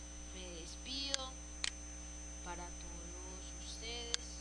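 Steady electrical mains hum picked up by the recording microphone, with a few sharp computer-mouse clicks and some brief faint voice-like chirps.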